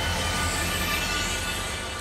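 CFR class 65 diesel locomotive running with a low engine rumble under a broad hiss, the whole sound slowly fading.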